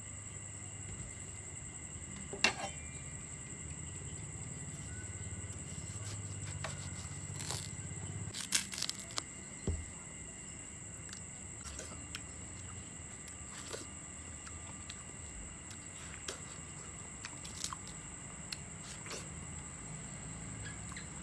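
Knife cutting a yellow watermelon and the eating of it, heard as scattered sharp clicks and knocks: a loud one about two and a half seconds in, a cluster around eight to ten seconds, and small ones near the end. A steady high-pitched insect trill runs underneath.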